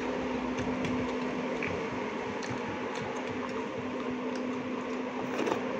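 Steady hum of a small motor running in the room, with one low steady tone, and a few faint clicks now and then.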